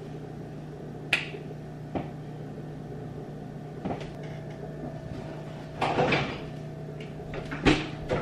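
Kitchen cupboard doors and items being handled: a few separate sharp knocks and clicks, a longer rattle about six seconds in, and the loudest knock near the end as a plastic gallon milk jug is set on the counter, over a steady low hum.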